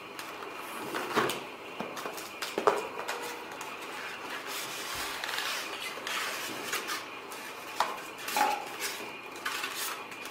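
Small hard parts being handled and set down on a table: irregular clicks, knocks and rattles, the loudest about a second in and near three seconds in, with more near the end.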